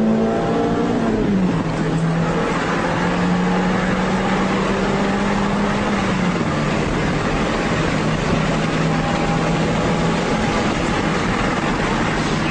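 Car engine running steadily with road and wind noise as the car drives; the engine note drops a step about a second and a half in and again about six seconds in.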